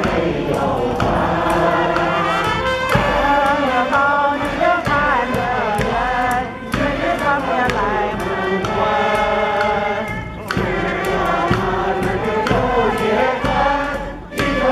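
A large crowd of amateur singers, men and women, singing a song together in chorus outdoors, led by a conductor. The singing goes in phrases, with short breaks between them.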